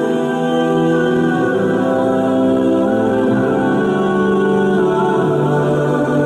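Music with slow, long held notes.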